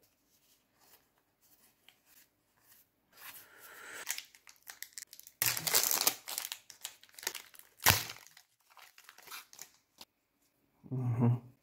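Foil wrapper of a Pokémon booster pack being torn open and crinkled by hand, loudest about five to seven seconds in, with a sharp snap near eight seconds and lighter crinkling after. A brief low vocal hum near the end.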